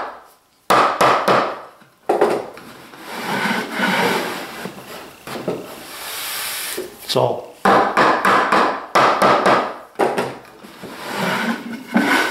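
Wooden sliding lid pushed back and forth along the grooves of a wooden box: wood rubbing and scraping on wood, with quick rattling knocks as the tongue rides in the groove and seats at the end.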